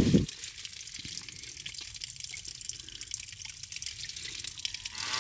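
Water from a small natural spring trickling and dripping out from under a rock ledge: a steady light trickle with many small drips.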